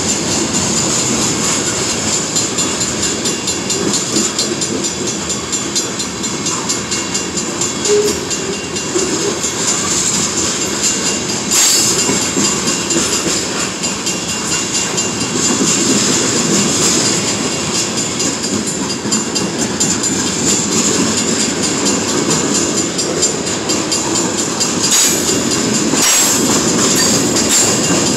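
Freight cars of a manifest train rolling past close by: a steady loud rumble and clatter of steel wheels on the rails, with a high steady hiss from the wheels. A few sharp clanks stand out, one about a third of the way in and two near the end.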